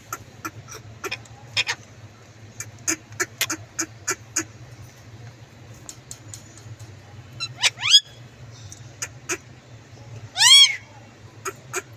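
Indian ringneck parakeet making a string of short sharp clicks and chirps, then two louder calls: a quick rising one near the middle and a rising-then-falling one, the loudest, near the end.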